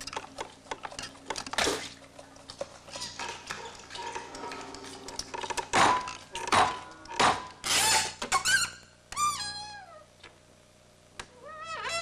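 Fork and plate clinking and scraping in a stop-motion film soundtrack, with a run of sharp knocks, the loudest between about six and eight seconds in. Then a few squeaky sounds glide down in pitch, and another short squeak comes near the end.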